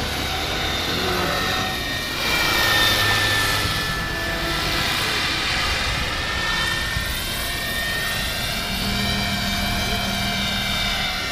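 Large five-bladed radio-controlled model helicopter in flight: a steady high whine from its drive over the rush of the rotor, the pitch sliding up and down as it passes and turns, a little louder a couple of seconds in.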